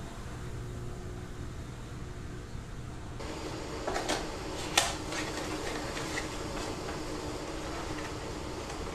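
Kitchen room tone with a steady low hum, and the handling of a tea box and crockery at a counter: a few rustles about four seconds in, then one sharp click.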